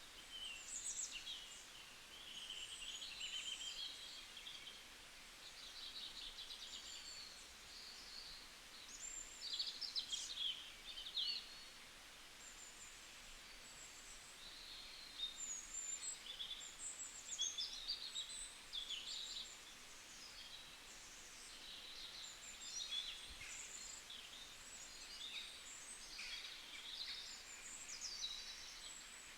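Several small songbirds chirping and trilling, many short high calls overlapping, with brief lulls, over faint steady outdoor background noise.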